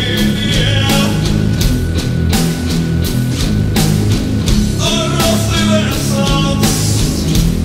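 Gothic metal track: heavy distorted guitars and bass with drums keeping a steady beat, and a melodic line rising above them near the start and again about five seconds in.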